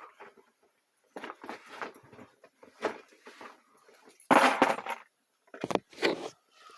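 Objects being handled and rummaged in an old box: irregular rustling and clattering, with a louder clatter about four seconds in and two sharp knocks soon after.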